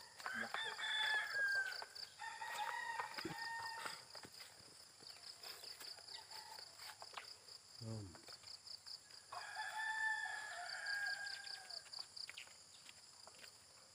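Roosters crowing: two long crows close together at the start and a third about ten seconds in, over a fast, even chirping of insects.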